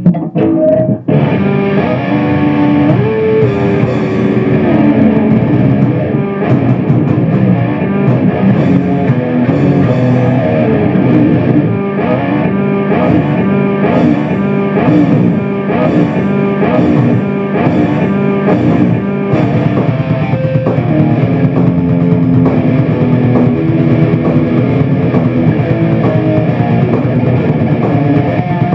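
Electric guitar playing improvised heavy metal riffs over a steady drum beat.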